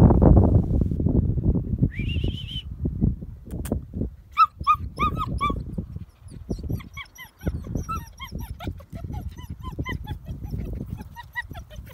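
Puppies whimpering and whining in short, high, pitched cries: a rising whine about two seconds in, a handful of cries a little later, then a quicker run of small cries, over low wind-like rumbling on the microphone that is loudest at the start.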